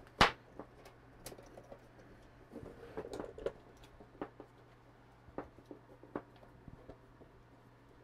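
Handling noises as things are worked with the hands on a workbench: one sharp click just after the start, then scattered lighter clicks and a short stretch of rustling about three seconds in.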